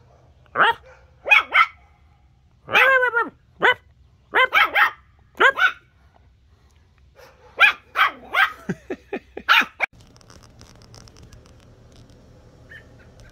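Small terrier puppy barking in high-pitched yaps, singly and in quick runs of two or three. The barking cuts off suddenly about ten seconds in, leaving only a faint steady background.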